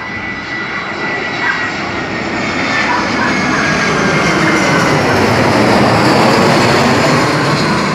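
Airbus A320-family jet airliner passing low overhead on landing approach: engine rumble and whine grow louder to a peak about six seconds in and then begin to fade, with the high whine tones gliding slowly downward as it goes by.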